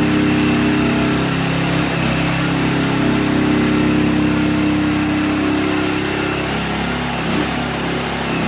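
Mini excavator's 13.5 HP Briggs & Stratton petrol engine running steadily, its note shifting briefly in pitch near the end.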